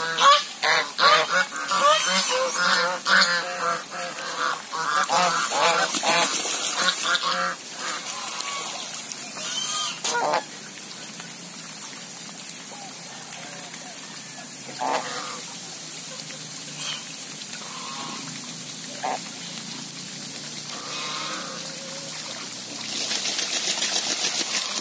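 A flock of domestic geese honking, a dense run of overlapping calls for the first eight seconds or so, then only scattered single honks. Near the end comes a burst of splashing water and flapping wings as a goose bathes.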